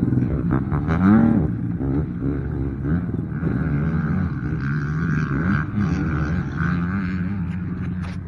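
Racing quad (ATV) engines on a dirt track, revving up and down as they pull away around the course; loudest about a second in.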